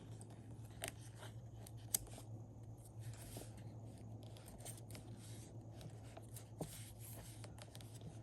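Faint paper handling while decorating a planner page: sticker sheets rustling, stickers being peeled and pressed down, with a few small clicks and taps, over a steady low hum.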